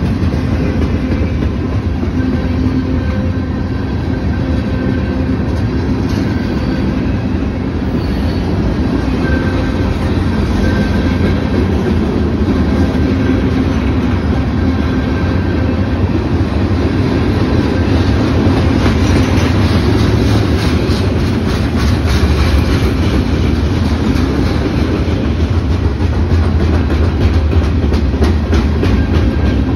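CSX freight train's cars (boxcars, covered hoppers and tank cars) rolling past at close range: a steady, loud rumble with the wheels clicking over the rail joints. The clicking grows more prominent in the second half.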